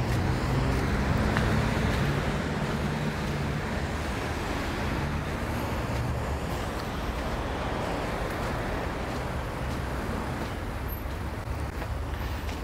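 Steady road traffic noise of passing cars, a mix of engine hum and tyre noise, a little louder in the first couple of seconds.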